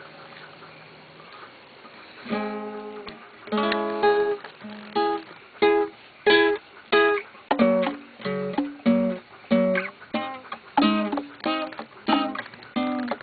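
Acoustic guitar strumming chords in a steady rhythm, starting about two seconds in, at roughly one to two strokes a second.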